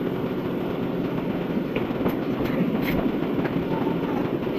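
Milking-shed machinery running during milking: a steady mechanical rumble with a few light clicks and clanks.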